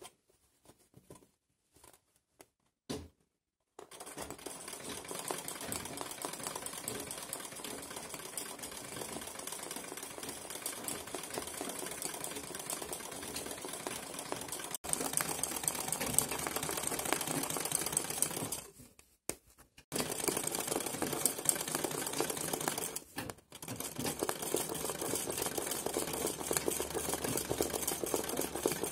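Straight-stitch domestic sewing machine (a 'kara makine') stitching fast in free-motion embroidery, the needle going in rapid steady runs. A few light clicks come first, the machine starts about four seconds in, and it stops briefly twice in the second half.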